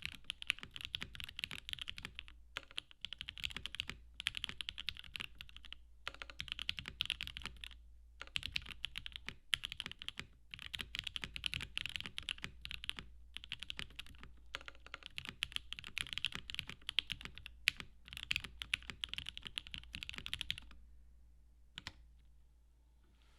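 Typing on a custom mechanical keyboard with lubed and filmed Alpaca V2 linear switches in a polycarbonate plate, under Cherry-profile PBT keycaps: quick runs of keystrokes broken by short pauses, stopping about 21 seconds in.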